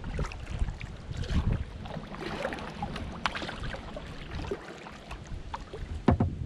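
Kayak paddle dipping and splashing, with water dripping off the blade and wind rumbling on the microphone; a sharp knock about six seconds in.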